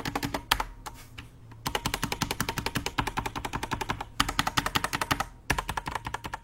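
Fast typing on a mechanical keyboard with stock Outemu Black linear switches: rapid runs of clacking keystrokes with brief pauses between them. The owner finds the spring ping in these switches quite audible.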